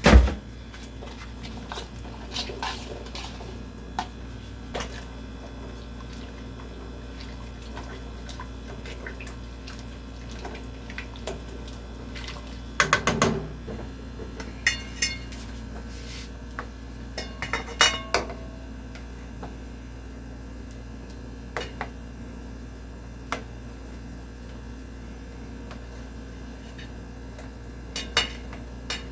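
Kitchen utensils clinking and knocking against pots and dishes. It opens with one sharp knock, then clinks come scattered in small clusters, the busiest about 13 and 18 seconds in, over a steady low hum.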